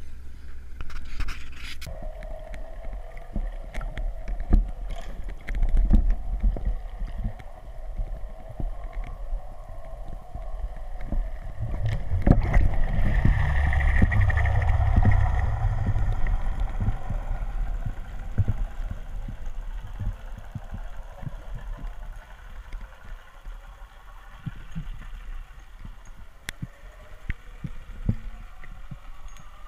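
Muffled underwater sound heard through a camera housing: a steady low rumble of water with scattered short clicks and knocks. It swells louder for a few seconds near the middle, with a faint steady whine over it.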